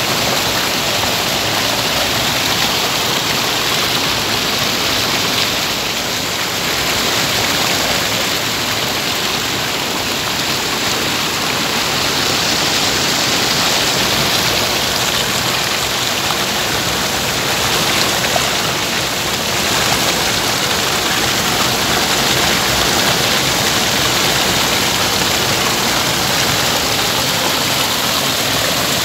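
Stream water rushing steadily past a fish trap's bamboo poles, stones and net, a continuous even noise with no breaks.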